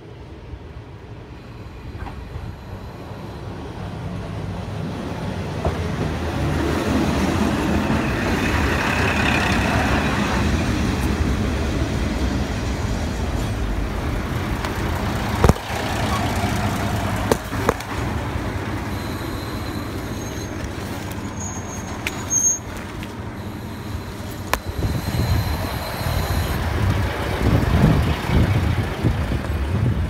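Two-car KiHa 40 diesel railcar train pulling into a station. The rumble of engine and wheels grows louder over the first several seconds as it nears, with a few sharp clanks as the cars pass close by. A thin high squeal comes in during the later part as it slows to a stop.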